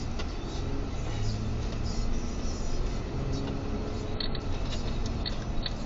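Engine and road noise of a moving car heard inside its cabin: a steady low rumble, with a few light clicks in the second half.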